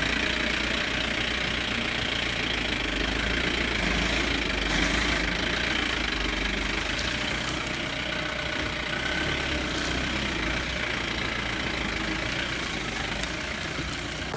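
Jeep engine running steadily, with a constant low rumble under an even rushing noise.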